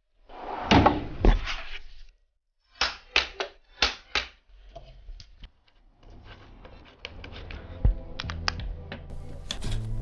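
Clunks and knocks of bicycle parts being handled and fitted: a clattering burst at the start and a run of sharp knocks about three to four seconds in. Background music comes in about six seconds in.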